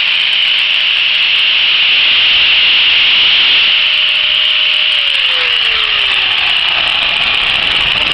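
Electric sanding machine shaping a purpleheart wood knife handle, with a steady motor hum and a loud hiss. About five seconds in, the hum slides down in pitch as the motor coasts down after being switched off.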